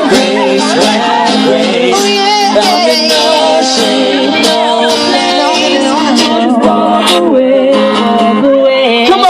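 Live pop song: a vocal group singing with instrumental backing.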